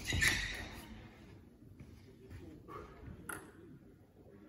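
Table tennis ball clicking off bat and table as a rally ends in the first moment, then a lull in the hall with a few faint single taps.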